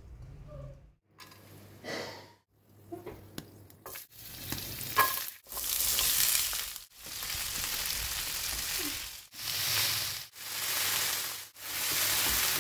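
Chopped onions, garlic, ginger and green chillies frying in hot oil in a nonstick pan, sizzling as they are stirred with a spatula. The sizzle comes in several loud stretches that start and stop abruptly. The first few seconds are quieter, with scattered taps and clicks.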